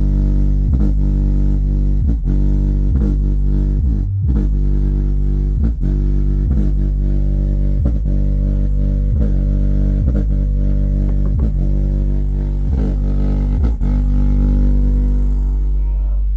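An Ahuja N18-SW1800 1800-watt neodymium speaker driver, bare with no cabinet, playing bass-heavy music with a steady beat a little more than once a second. The music fades out at the very end.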